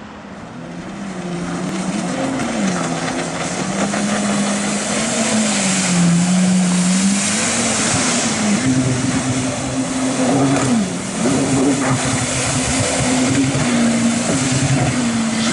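Jet ski engine running hard through tight turns, its pitch rising and falling as the throttle opens and eases, over the hiss of churned water and spray. It grows louder over the first few seconds.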